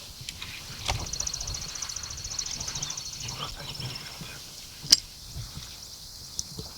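A small bird sings a high, fast trill of evenly repeated notes for about two and a half seconds, starting about a second in. A single sharp click comes near five seconds.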